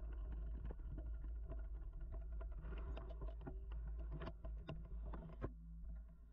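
Mountain bike rolling along a dirt singletrack, heard through the rider's mounted camera: a steady low rumble with many clicks and rattles. There is one sharper knock about five seconds in, and the sound gets quieter near the end.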